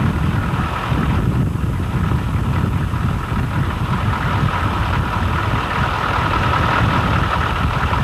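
A motor vehicle's engine and road noise, running steadily with a low rumble.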